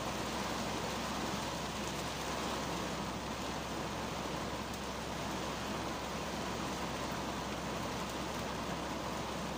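Rain falling on the windshield and roof of a 2010 Kia Cerato, heard from inside the cabin as a steady, even hiss.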